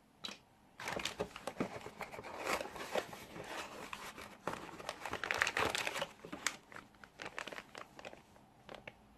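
Plastic packaging crinkling and rustling with small clicks as drone parts are handled and unwrapped, starting about a second in and fading near the end.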